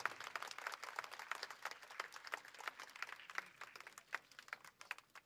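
Audience applauding, a dense patter of hand claps that thins out to a few scattered claps near the end.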